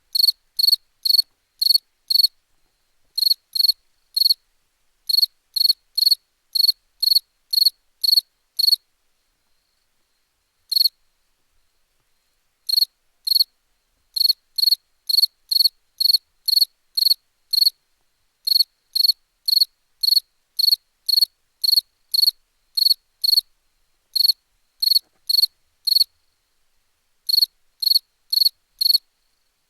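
A cricket chirping, about two short high chirps a second, in runs broken by pauses of a second or two, with the longest pause near the middle.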